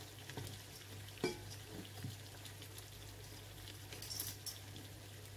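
Chicken pieces and vegetables frying in a pan with a faint, steady sizzle. There is a sharp click about a second in, and a few clicks near four seconds as kitchen tongs move the pieces against the pan.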